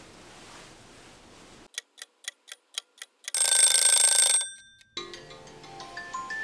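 Added sound effects: a clock ticking about four times a second, then an alarm-clock bell ringing loudly for about a second and cutting off suddenly, followed by a rising run of chime notes.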